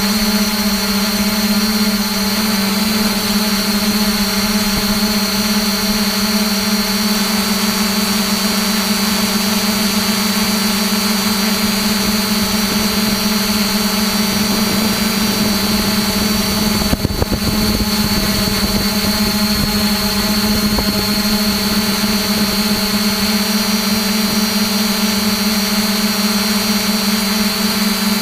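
Multirotor drone's electric motors and propellers humming steadily, heard close up from the camera on the drone. A steady high whine rides over a strong low hum, which wavers briefly about 17 seconds in.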